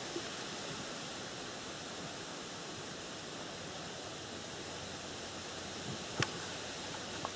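Quiet outdoor background: a steady faint hiss, with two small ticks about six and seven seconds in.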